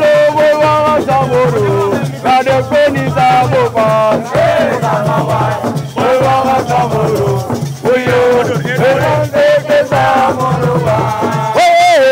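Loud music: a voice singing a sliding melody over a steady drum beat and a shaken rattle.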